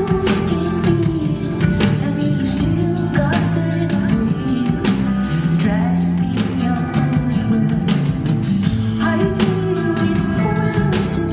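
A live rock band playing: steady drum hits over bass guitar and sustained keyboard-like chords, with a woman singing.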